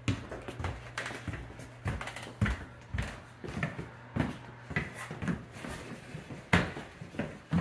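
Footsteps and thumps of workers walking across the floor while carrying a quartz countertop slab, about two a second, with a sharper knock about six and a half seconds in. A steady low hum runs underneath.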